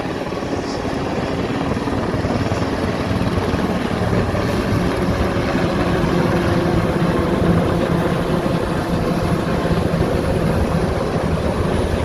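Helicopter flying past, its rotor and engine sound building to a peak a little past the middle and easing slightly near the end.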